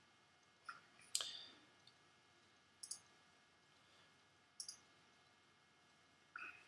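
Faint, sparse clicks of a computer mouse over near-silent room tone: a few single clicks, the loudest about a second in, and two quick pairs of clicks around three and four and a half seconds in.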